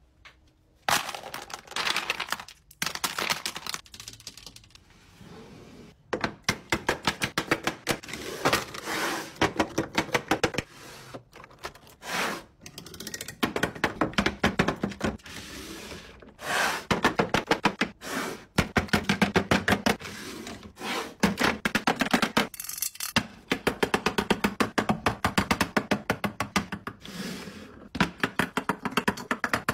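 Plastic makeup cases and palettes being handled and set into clear acrylic organizers: quick runs of clicks and taps, several a second, with occasional knocks and sliding.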